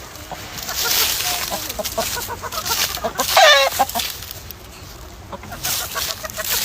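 A flock of chickens clucking and calling, with many short clucks overlapping and one louder, longer call about halfway through.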